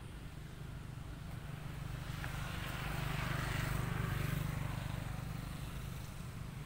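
A motor vehicle passing by: a low engine hum with tyre noise grows louder to a peak about halfway through, then fades away.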